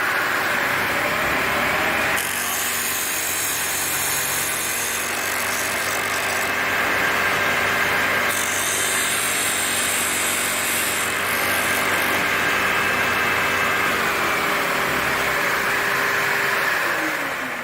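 Myford ML8 lathe driving a 12-inch sanding disc, a steady hum, while a piece of 1/4-inch plywood is pressed against the abrasive in two spells of harsh sanding, about two seconds in and again around eight seconds in. Near the end the lathe is switched off and the hum falls in pitch as the disc spins down.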